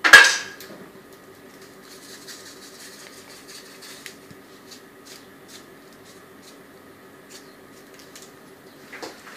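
A metal utensil strikes the cooking pot once, a sharp clink with a brief ringing. A faint, steady low hum and a few light ticks follow.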